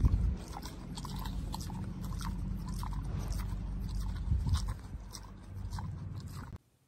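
Pot-bellied pig chewing and smacking while eating, a run of short wet crunches and clicks, with low wind rumble on the microphone; it cuts off abruptly near the end.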